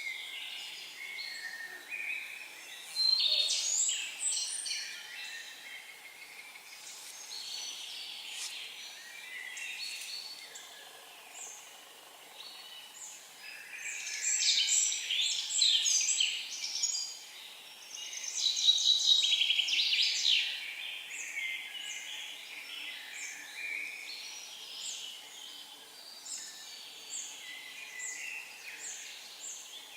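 Several small songbirds singing at once, their high-pitched phrases and chips overlapping, with louder spells of song about three seconds in and again from about fourteen to twenty seconds in.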